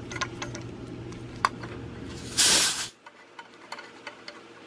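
Pressurised nitrogen vented from a refrigerant line set with a short, loud hiss lasting about half a second, a little over two seconds in, releasing the 200 PSI test charge after a pressure test that held with no leak. Before it come light clicks of fittings being handled over a low steady hum that stops right after the hiss.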